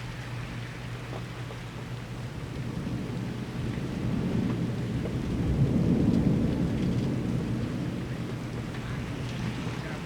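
Thunder rumbling during a severe thunderstorm, swelling over a few seconds to a peak near the middle and then fading, over steady rain.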